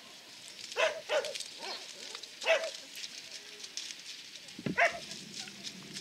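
Border collie barking in short, sharp barks while running an agility course: two in quick succession about a second in, another a second and a half later, and a last one near the end, with a dull thump just before it.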